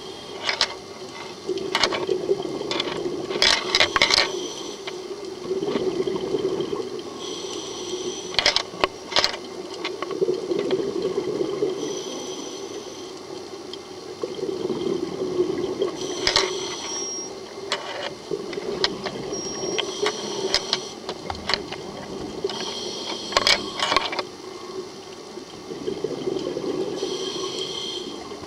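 A scuba diver's regulator breathing, heard underwater: an inhale hiss with sharp clicks, then a bubbling rush of exhaled air, repeating every few seconds.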